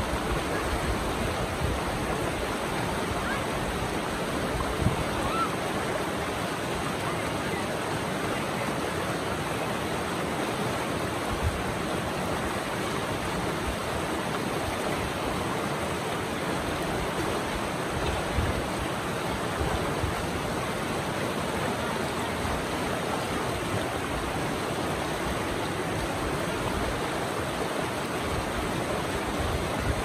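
River rapids rushing steadily over and between boulders: the Río Pacora pouring through a small rocky chute in a continuous, even flow of white water.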